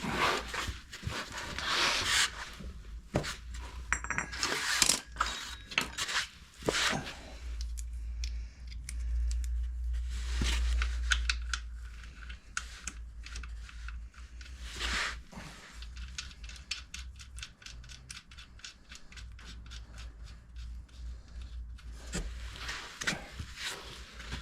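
Metal hand tools clicking and scraping while a motorcycle's sump parts are refitted, with a run of quick, even clicks through the second half.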